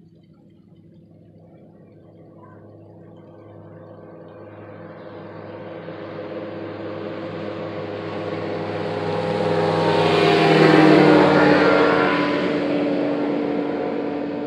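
A motor vehicle passing by: its engine hum grows steadily louder, peaks about eleven seconds in with a drop in pitch as it goes past, then fades.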